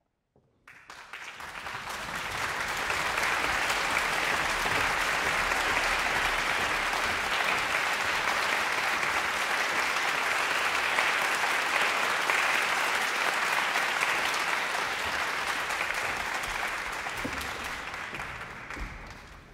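Audience applauding, building up over the first couple of seconds, holding steady, then dying away near the end.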